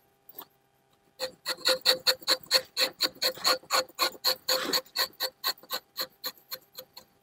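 Rubber-tapping knife shaving bark along the tapping cut of a rubber tree in a quick run of short scraping strokes, about four or five a second, growing fainter near the end.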